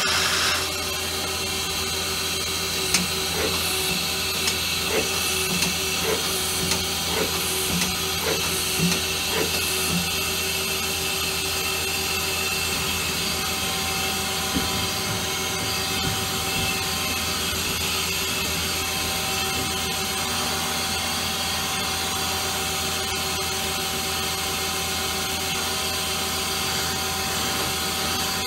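2008 Mazak Quick Turn Nexus 250-II MSY CNC lathe running at about a thousand RPM: a steady motor whine and hum. For several seconds near the start there is a run of evenly spaced clicks, a little over one a second, as the tool turret indexes between stations.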